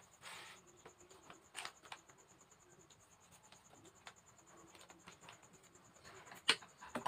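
Sheet mask packet being torn open and handled: scattered soft crinkles and rustles, with a sharper crackle near the end. Under them runs a faint, steady, high-pitched whine.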